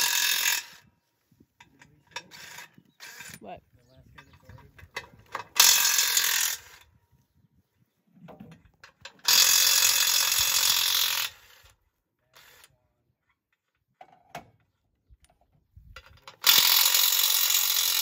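Ratchet wrench running lug nuts onto the hub of a center pivot irrigation tower wheel, in four loud bursts of rapid clicking, each one to two seconds long.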